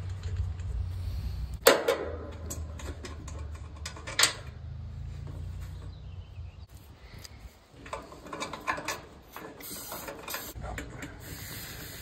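Brass refrigerant gauge-hose fittings clicking and clattering as they are handled and screwed onto the air conditioner's service ports: two sharp clicks in the first half, then a run of small clicks and a brief hiss near the end as the hoses go on.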